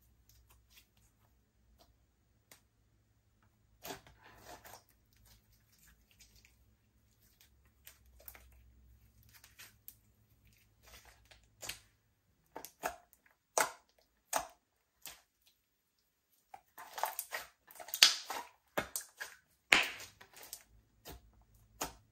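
Slime being mixed by hand: irregular sticky clicks and wet pops, sparse at first, then coming thick and loudest in a cluster in the last third.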